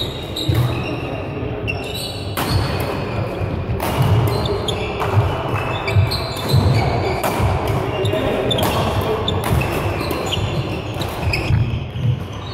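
Badminton doubles rally: rackets striking the shuttlecock in quick succession, shoes squeaking and feet thudding on the court floor, echoing in a large sports hall.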